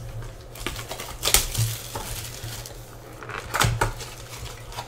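A 2016 Bowman's Best baseball card pack being torn open by hand: wrapper crinkling and rustling, with two sharp rips, about a second in and again near the end.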